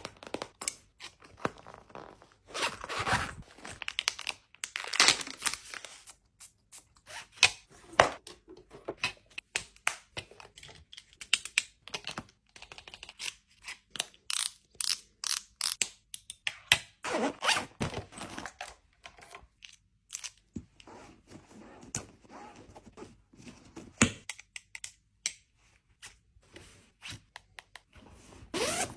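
Hands unboxing and handling packaging: irregular thunks, taps and scrapes, with bursts of rustling and tearing paper.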